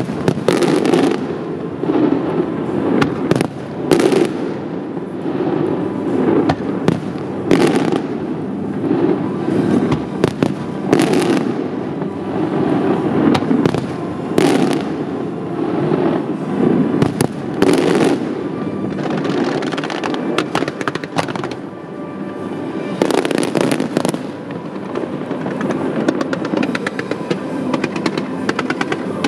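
Fireworks display: a string of sharp bangs about every second or two, over a continuous rumbling haze, easing off briefly about two-thirds of the way through before the bangs pick up again.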